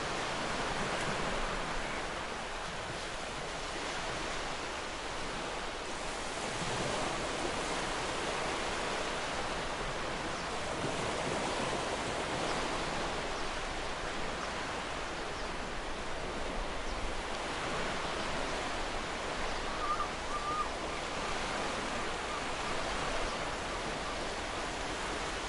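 Sea waves breaking and washing on a shore in a steady, continuous surf, swelling and easing every few seconds.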